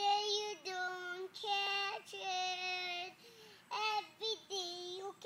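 A young child singing a tune in a high voice: a run of held, steady notes with short breaks between them.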